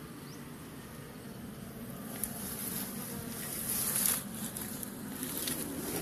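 A clump of honeybees buzzing in a steady low hum, with rustling, scraping noises joining about two seconds in, loudest near the middle.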